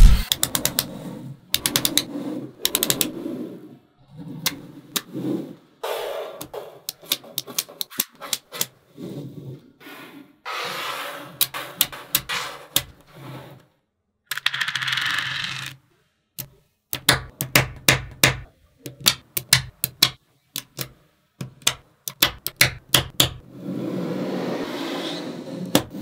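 Small magnetic balls snapping onto one another in sharp clicks, sometimes single and sometimes in quick runs, with a few denser stretches of rattling as balls are handled in a group.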